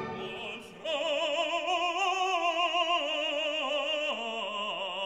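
Background music: an operatic voice singing sustained notes with wide vibrato, coming in about a second in after a brief lull and stepping down in pitch twice.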